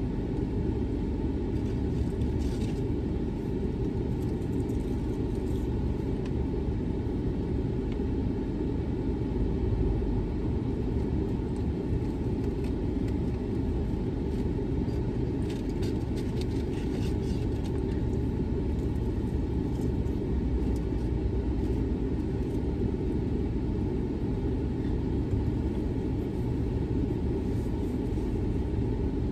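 Steady low rumble of a parked car's idling engine, heard from inside the cabin. A few faint clicks or rustles come around the middle.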